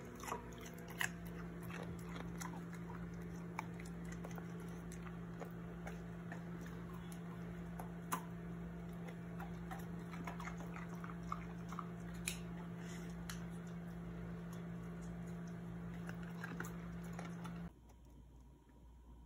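Husky crunching and chewing raw cucumber slices from a bowl: scattered crisp crunches over a steady low hum. The hum cuts off suddenly near the end.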